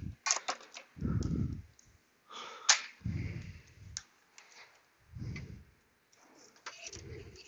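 Cordless electric ratchet run in short bursts, four times, each under a second, turning a bolt loose, with sharp clicks and knocks of the tool and socket between the bursts.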